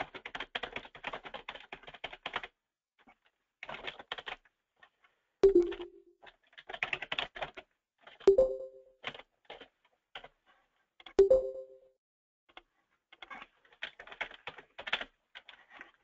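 Computer keyboard typing in quick bursts of key clicks as an address is entered into a form. Three louder knocks, each with a brief low ring, fall between the bursts.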